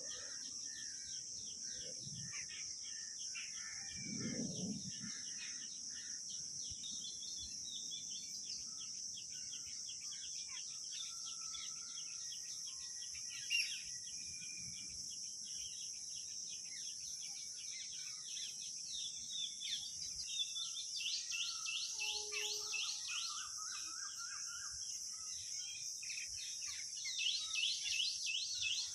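Outdoor bird chorus: many small birds chirping in quick runs, louder near the end, over a steady high-pitched insect drone.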